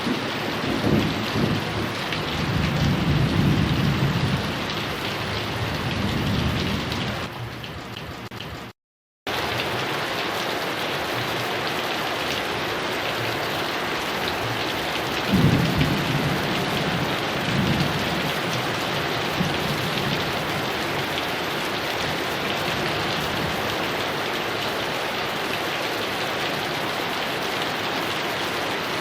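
Heavy rain falling steadily, with thunder rumbling through the first several seconds before it fades. About nine seconds in the sound cuts out completely for about half a second, then the rain comes straight back. Another roll of thunder comes about fifteen seconds in.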